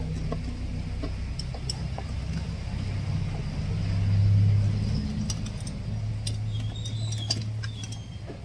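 Low steady hum that swells briefly about halfway through, with light scattered metallic clicks of hand tools working in an engine bay. A bird calls faintly, once, near the end.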